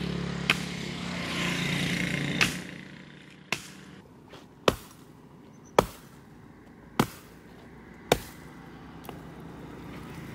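An axe chopping into a dead, dry tree stump: eight sharp blows, mostly about a second apart, the last one faint.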